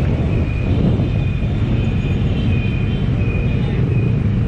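Bristol Veloce 500's 471cc parallel-twin engine running while the motorcycle rolls through slow traffic, its pitch dipping and rising again about half a second to a second in, then holding steady.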